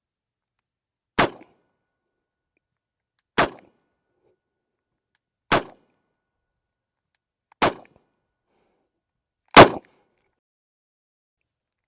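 Ruger GP100 .44 Special revolver firing five shots, evenly spaced about two seconds apart, with the last shot the loudest.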